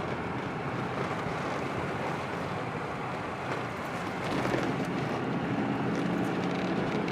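Subaru cabin noise while driving slowly: steady road and engine sound that grows a little louder about four seconds in, with a low steady hum. No seatbelt reminder chime sounds with the belt unbuckled, because the chime has just been disabled.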